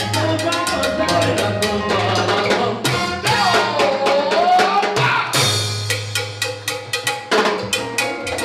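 Salsa orchestra playing live: hand percussion and drums over a repeating bass line, with a melody line that bends up and down about halfway through.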